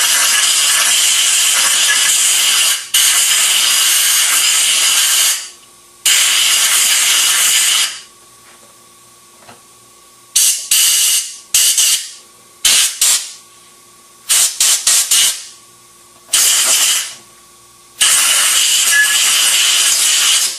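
Compressed air hissing from a blow gun on a coiled air hose, blowing out the passages of a Briggs & Stratton twin-cylinder engine's carburetor to clean it. Three long blasts come first, then a run of short spurts, and a last long blast near the end.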